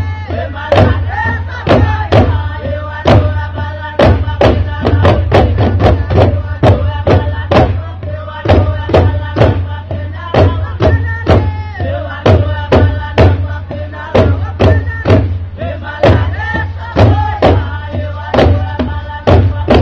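Group of voices chanting and singing a traditional singsing song over steady drumming, about three beats a second.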